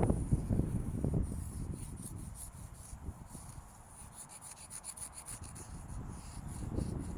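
Chalk rubbing and scraping in many quick, scratchy strokes, with wind buffeting the microphone at the start and end.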